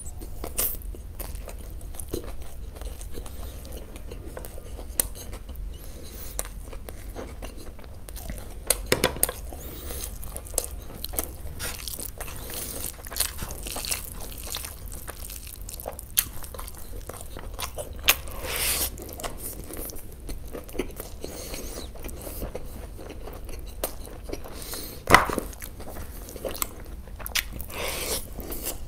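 A person biting and chewing food, with irregular short crunches and clicks throughout; the loudest comes about 25 seconds in.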